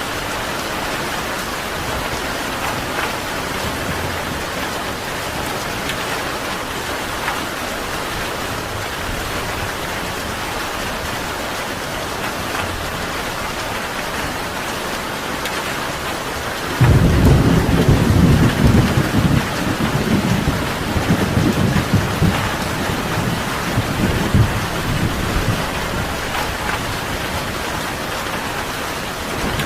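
Steady rain falling. About halfway through, a sudden deep thunderclap breaks in and rolls on, fading out over several seconds.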